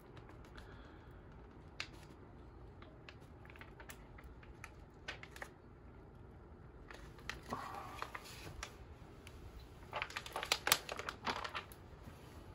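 Faint crinkling and rustling of a folded diamond painting canvas being handled, with a cluster of louder crackles near the end.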